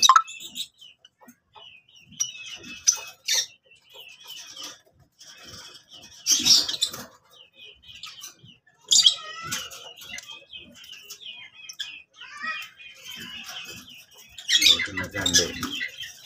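Lutino peach-faced lovebirds chattering with high, scratchy chirps in irregular flurries, the loudest flurry near the end.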